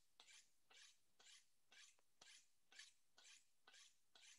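Kitchen knife drawn along a honing steel in quick, even strokes, about two light, faint scrapes a second, honing the freshly sharpened edge back to the middle.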